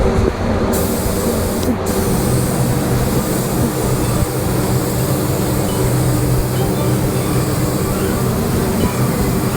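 Paint spray gun hissing steadily as it sprays, starting a little under a second in with a brief break shortly after, over a steady low hum.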